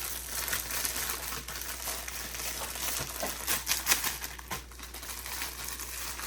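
Plastic packaging crinkling and rustling as it is handled, a run of dense irregular crackles with a few sharper clicks partway through.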